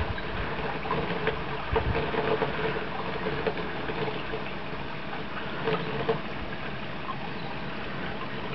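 Steady running of a laminar jet fountain, its water arc splashing down, with a faint hum that comes and goes.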